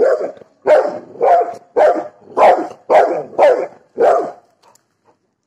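A dog barking loudly about eight times in a steady run, roughly two barks a second, stopping about four and a half seconds in.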